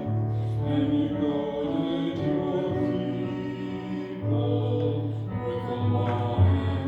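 Hymn music: voices singing over instrumental accompaniment, with long held notes and a low bass line that changes every second or two.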